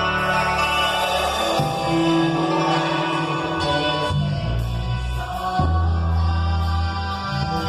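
A band playing a song with a sung vocal line over bass notes that change every second or so.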